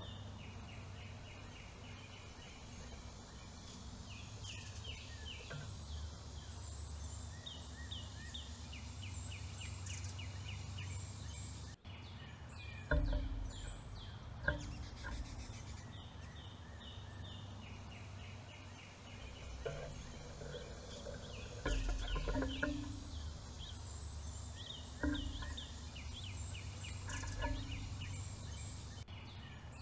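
Backyard songbirds singing, with series of quick repeated chirps again and again, over a steady low outdoor rumble. A few dull knocks stand out as the loudest sounds, about halfway through and again later.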